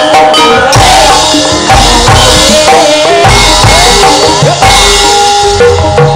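A female sindhen singing a wavering Javanese vocal line into a microphone over gamelan accompaniment. Drums and a deep bass come in strongly about a second in.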